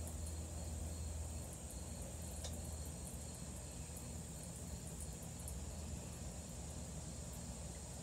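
Insects trilling steadily in a high, even pulse over a low steady hum, with a faint click about two and a half seconds in.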